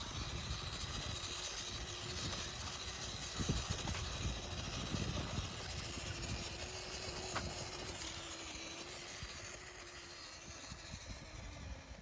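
Faint, steady whine of a radio-controlled off-road truck's electric motor over a hiss of outdoor noise, with a few light knocks.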